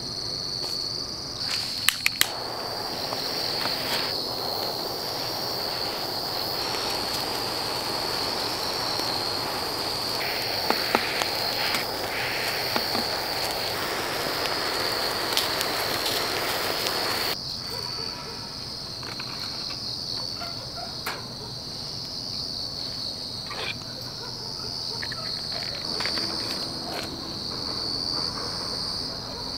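Hand-held gas torch hissing steadily as its flame lights charcoal briquettes in a grill. It starts after a few clicks about two seconds in and cuts off suddenly at about seventeen seconds. Crickets chirp steadily and high-pitched throughout, with small handling clicks near the end.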